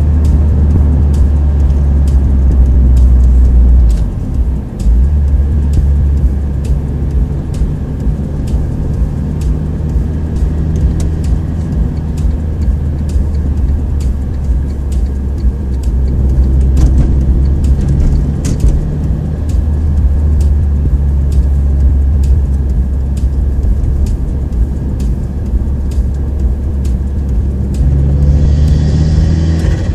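Car engine and road rumble heard from inside the cabin while driving at steady speed, a deep drone with an engine note above it, dipping briefly about four seconds in. The car is a Mitsubishi Colt.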